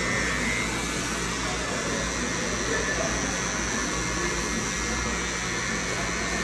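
Cordless electric hair clipper running steadily as its blade trims short hair at the nape of the neck: a constant buzz and hiss with no break.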